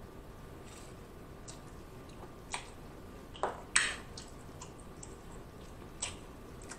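Wet eating sounds from a king crab leg: meat picked and pulled from the shell with the fingers and eaten, heard as a few short wet clicks and snaps, the loudest a little under four seconds in.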